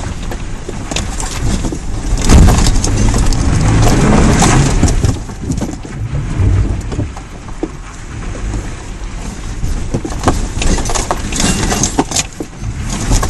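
Toyota FJ Cruiser 4x4 driving over rough, muddy off-road ground: the engine works under load and swells loudest a couple of seconds in, over repeated knocks and rattles from the body and suspension.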